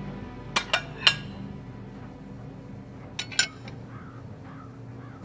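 Dishes clinking as food is served at a table: three short clinks in quick succession about half a second to a second in, then two more about three seconds in, each with a brief ring.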